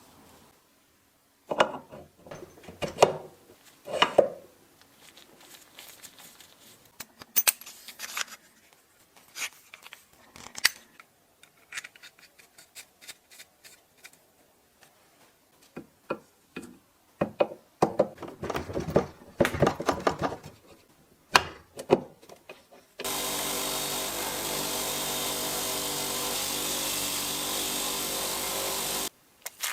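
Workshop work on metal machine parts: scattered clicks, knocks and scrapes, then a power tool runs steadily for about six seconds and cuts off abruptly near the end.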